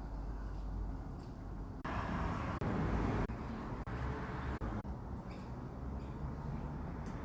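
Steady low background rumble, with a louder rush of noise from about two to three seconds in and a few faint, short high chirps from a lorikeet.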